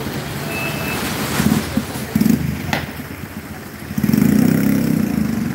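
Heavy rain pouring down on a busy street, with motorcycle engines running past on the wet road. About four seconds in, a nearer engine comes up louder.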